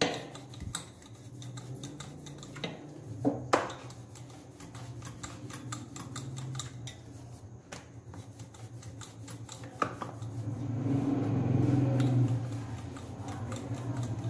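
Wooden rolling pin rolling paratha dough on a marble counter: a low rumble that grows louder about ten seconds in. A few sharp knocks of the pin or hands against the stone come near the start, around three and a half seconds in, and again around ten seconds.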